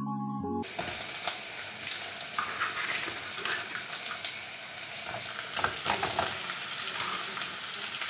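Chopped vegetables sizzling as they sauté in a pot on a gas burner, with small irregular knocks and scrapes from a wooden spoon stirring them.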